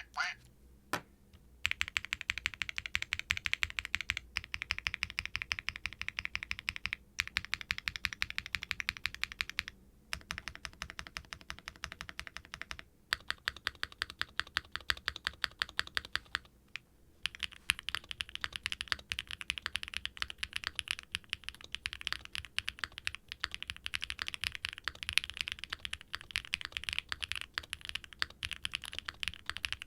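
Typing on a Qwertykeys QK65 V2 mechanical keyboard with factory-lubed Keygeek Y3X linear switches, an aluminum plate and GMK Nord doubleshot ABS keycaps: a steady stream of keystrokes with a deep, creamy, thocky sound, broken by a few brief pauses. From about halfway on the typing gets faster and denser.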